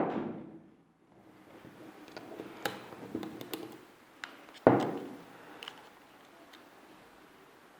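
Scattered plastic clicks and taps as an opening tool pries at the housing of a Samsung Galaxy J7 Nxt phone, with one sharper, louder click a little past halfway.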